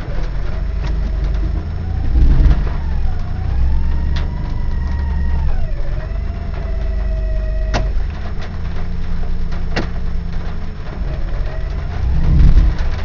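A 1995 Ford Explorer's automatic transmission whining loudly over the running engine while in gear, the whine wandering up and down in pitch, with a few sharp clicks and two louder low swells, a couple of seconds in and near the end. The owner says the whine comes in reverse or drive and stops at 5 to 8 mph, and places it in the main part of the transmission, without ruling out the torque converter.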